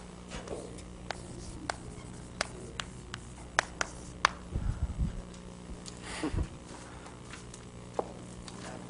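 Chalk tapping and scraping on a chalkboard while writing, a string of sharp separate taps, with a few low thumps and a steady low hum underneath.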